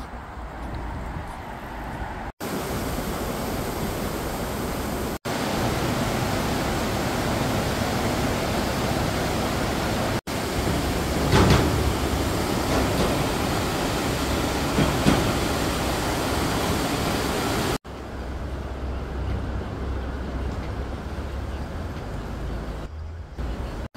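Fast-flowing river water rushing over rocks at the bank: a steady, loud wash of noise, broken off abruptly by several cuts. Street traffic ambience at the start, and a quieter, lower rush near the end.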